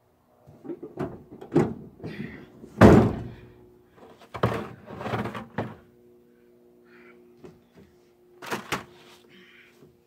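Pickup truck tailgate being unlatched and dropped open with a loud clank about three seconds in, among knocks and bumps of gear in the steel truck bed. A faint steady hum runs through the second half.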